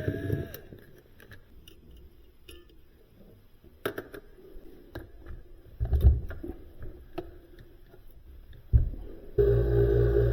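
Scattered light clicks and a few heavier metal knocks of tools and panel parts being handled as the top grille comes off a Sub-Zero refrigerator. Near the end a steady low hum starts abruptly.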